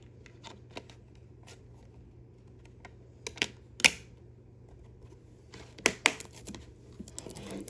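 Plastic DVD case being handled, with scattered light clicks and a few sharper snaps, busier near the end.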